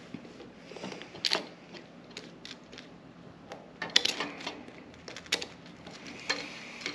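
Irregular small clicks and taps of a screwdriver and plastic parts as screws are snugged hand tight into the plastic housing of an EV charging handle.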